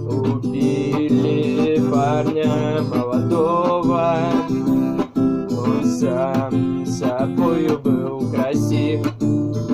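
Acoustic guitar strummed in a steady rhythm, with a wavering melody line over it.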